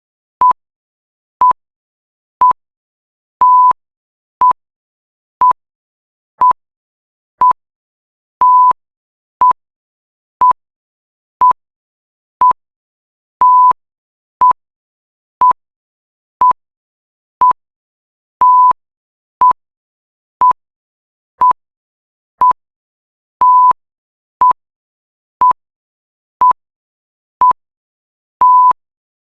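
Countdown timer tick sound effect: a short, loud electronic beep once a second, with every fifth beep held longer.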